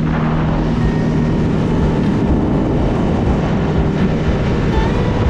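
Boat motor running steadily under way, a constant low hum, with wind rushing over the microphone.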